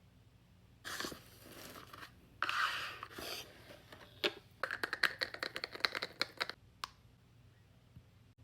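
Packaging being torn and crinkled open in two bursts, followed by about two seconds of quick, sharp clicks and crackles.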